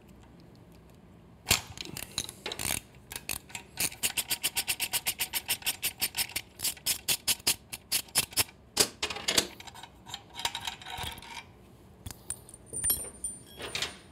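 Socket ratchet clicking in quick, even strokes, about five a second, as a 12 mm bolt is backed out, then a few irregular metallic clicks and clinks of the tool and the loosened hardware.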